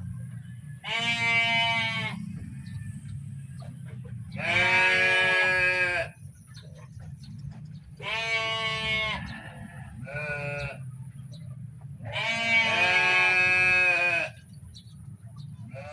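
Farm animals bleating: five long, drawn-out calls in turn, the longest about two seconds, over a steady low background rumble.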